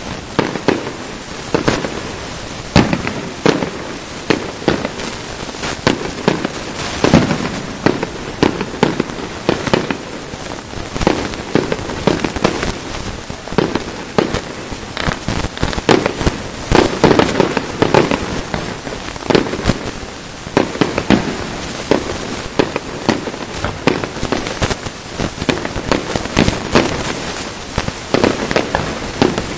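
Aerial firework shells bursting in quick, irregular succession, sharp bangs several a second over a constant hiss, with a denser, louder run of bangs in the middle.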